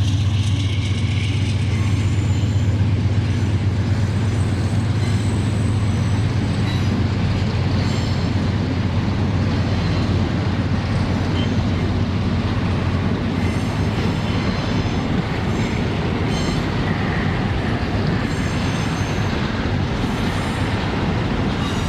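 Diesel freight train passing: the locomotive's engine drones steadily for the first half, then the freight wagons keep rolling over the rails with faint wheel squeal.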